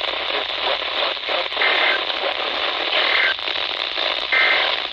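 Hiss and crackle of a weak NOAA Weather Radio broadcast heard through a receiver. Three short two-tone data chirps come through the static about a second and a half apart, like the SAME header bursts that open an alert test.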